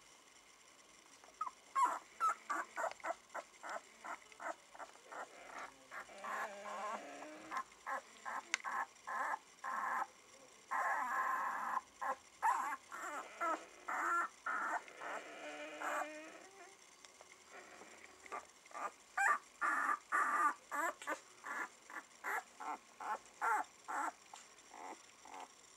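A litter of nine-day-old Border Collie puppies squeaking and whimpering. Rapid short squeaks come about four a second, starting about two seconds in, broken by a few longer wavering whines in the middle.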